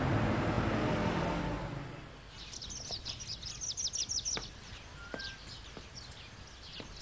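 Dramatic background music fading out over the first two seconds, then birds chirping over and over, with a few faint clicks.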